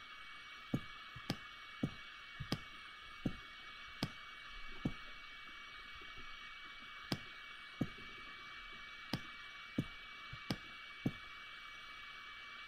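Computer mouse clicking, about fifteen sharp clicks at irregular intervals with a pause of a couple of seconds midway, over a faint steady hiss with a thin high whine.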